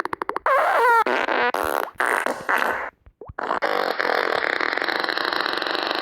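Fart sound effects played by a downloaded fart-sound app. First comes a rapid sputtering run, then a few short ones wobbling in pitch. After a brief gap, a long steady buzzing fart begins about three and a half seconds in.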